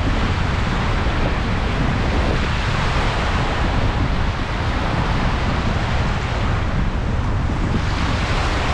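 Sea waves washing in as a steady roar of surf, mixed with wind buffeting the microphone in a heavy low rumble.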